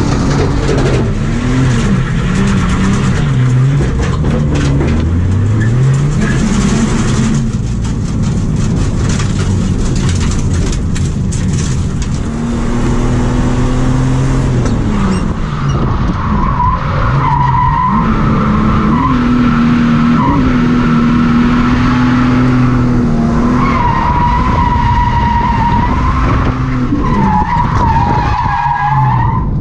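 Ford AU Falcon XR6's straight-six engine revving up and down while the car drifts, heard from inside the cabin. From about halfway through, the tyres squeal in long wavering tones as the car slides.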